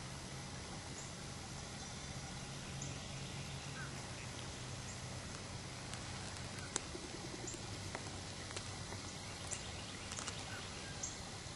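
Outdoor ambience: a steady low hum and hiss, with a few faint, short bird calls scattered through and a sharp click a little after the middle.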